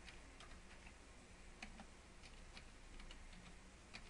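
Faint, irregular keystrokes on a computer keyboard as a username and password are typed, over a steady low hum.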